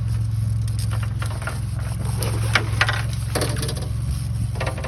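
Boat engine idling steadily, with scattered knocks and rattles on board over it.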